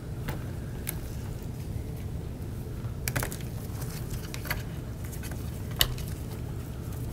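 A few scattered light clicks and taps as gloved fingers pull a thin internal wire and its connector free of a laptop's plastic chassis, the sharpest a little before the end, over a low steady hum.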